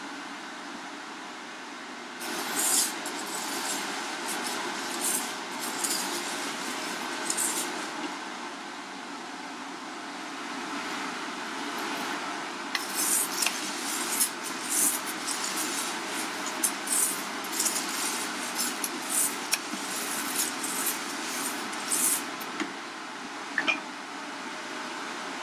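Freshly dropped coffee beans rustling and rattling as they are stirred with a wooden stick in the perforated cooling tray of a Coffee-Tech FZ-94 lab roaster, over the roaster's steady fan noise. The stirring comes in two spells, from about two seconds in to about eight, and again from about thirteen seconds to twenty-two.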